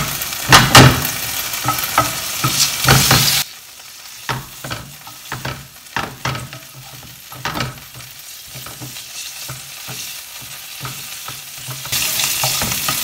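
Anchovy fillets sizzling in hot olive oil in a nonstick pan, with a slotted spatula scraping and tapping against the pan as it stirs. The sizzle drops away abruptly about three seconds in, leaving quieter scraping strokes, and comes back near the end.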